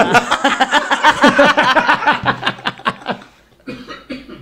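Men laughing together, loud at first and trailing off about three seconds in.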